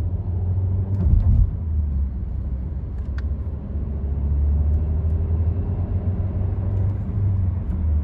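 Volkswagen Passat petrol car heard from inside the cabin while driving at town speed: a steady low rumble of engine and road. There is a brief thump about a second in and a small click a couple of seconds later.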